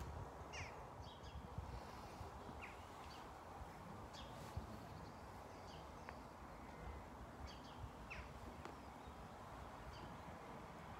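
Faint bird calls: short chirps and quick falling whistles every second or so, over a low steady rumble.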